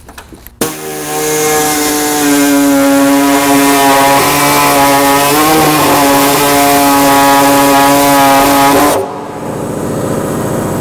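Pneumatic drill with a hole saw cutting a round hole through a sheet-steel body panel: a loud, steady whine over a hiss, which dips briefly in pitch near the middle as the saw bites. It starts about half a second in and stops about two seconds before the end.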